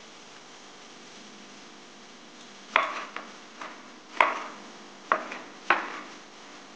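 Kitchen knife chopping on a cutting board: a few separate sharp strokes, irregularly spaced, beginning about halfway through, with some fainter taps between them.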